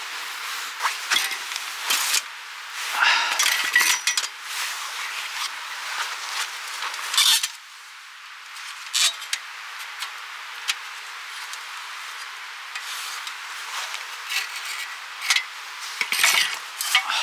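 Scattered metal clinks and knocks, with handling noise, as a folding bow saw and a perforated steel stove panel are handled and set against a log.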